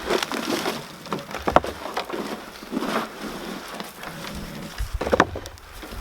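Dry compost and soil pattering and rustling as hands dig through a potato container. A few sharper knocks come through, about one and a half seconds in and again near the end.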